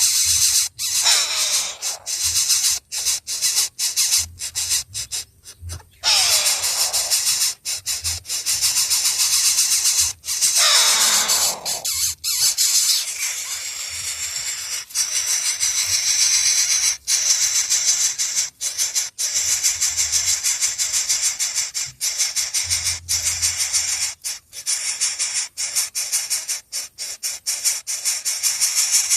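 Baby birds begging for food: a steady high, raspy, hissing chatter. A few long falling squeals come through it, the clearest about 6 and 10 seconds in.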